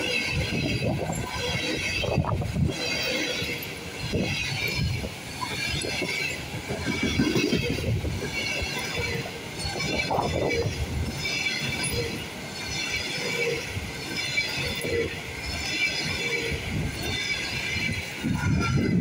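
Passenger coaches rolling past at speed: a steady wheel-on-rail rumble, with a high wheel hiss that swells about once a second as each coach's bogies go by.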